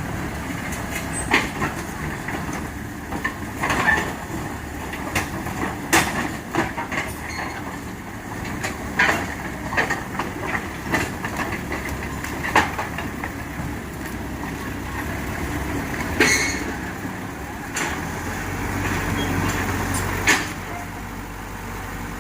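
Heavy construction machinery running, a bulldozer and a dump truck: a steady diesel engine rumble with repeated sharp metallic clanks and knocks at irregular intervals. The engine rumble swells louder near the end.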